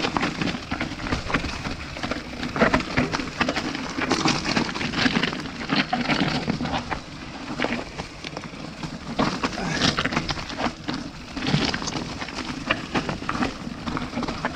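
Mountain bike riding over a rough, rocky trail: tyres crunching over stones and the bike rattling, with many irregular knocks and clatters.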